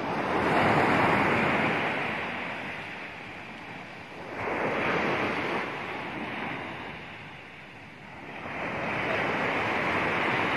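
Sea surf breaking on a sandy beach, three waves in turn, each swelling up and dying away, with some wind on the microphone.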